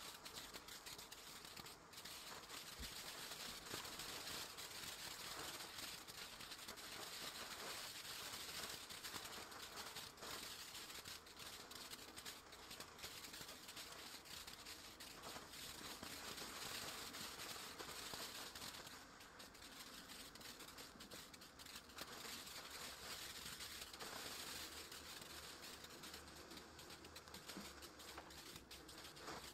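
Firework ground fountain burning with a faint, steady hiss and dense crackling.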